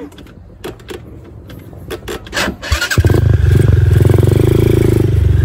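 ATV engine starting about three seconds in, after a few scattered clicks, then running steadily with a rapid, even firing pulse.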